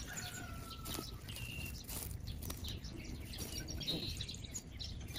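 Birds chirping faintly and sporadically, a few short calls over quiet outdoor background.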